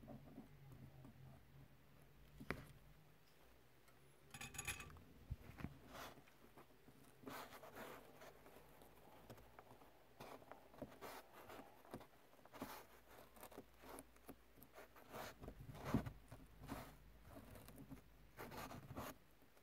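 Quiet, irregular scratching and clicking as fingers work a wire and its plastic connector through a hole in a car's fabric headliner, with short scrapes and ticks throughout.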